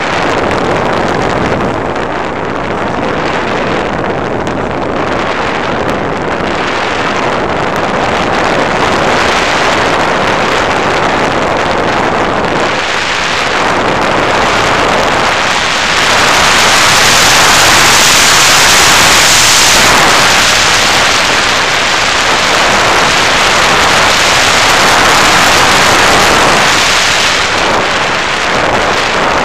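Airflow rushing over the onboard camera of an FPV Raptor model plane in flight, mixed with its electric pusher motor and propeller: a loud, even rushing noise that grows louder and brighter a little past halfway, then eases.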